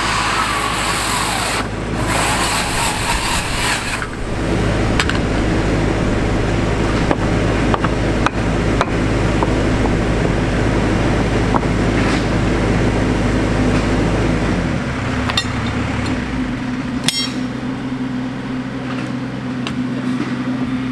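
Backhoe diesel engine running hard, with scattered sharp knocks and cracks; about fifteen seconds in the engine drops to a lower, steadier note.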